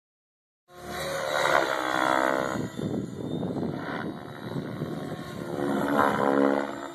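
Radio-controlled helicopter flying aerobatics overhead, its rotor and drive whine sliding up and down in pitch as it manoeuvres. It is loudest about two seconds in and again near six seconds.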